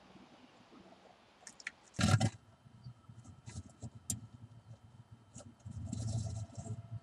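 Blue tit inside a wooden nest box: a loud brief scrabble about two seconds in, scattered clicks and scratches of claws on wood, then rustling and scratching of moss and dry grass from about six seconds in as it turns and shapes the nest cup.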